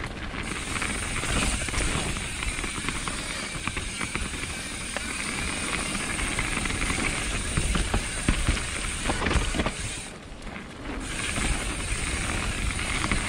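Mountain bike riding down a dirt singletrack: tyres rolling over the trail with the bike rattling and knocking over rough ground, easing off briefly about ten seconds in.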